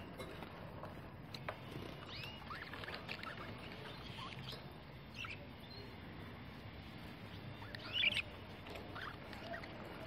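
Budgerigars chirping: short, squeaky rising-and-falling calls scattered throughout, the loudest cluster about eight seconds in, among light clicks.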